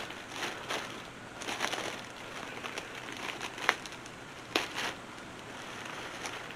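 Packaging crinkling and rustling as a clothing item is unwrapped and handled, with two sharp crackles a little past the middle.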